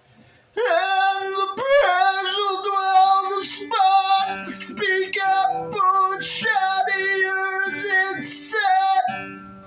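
A high singing voice carrying a melody over a steel-string acoustic guitar, starting about half a second in and fading out about 9 seconds in, with the guitar notes left ringing.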